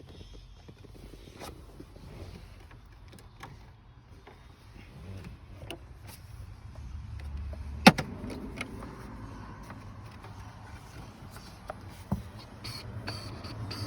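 Plastic dashboard trim in a 2000 Toyota Sienna being worked loose by hand: scattered clicks and rubbing, with one sharp knock about eight seconds in.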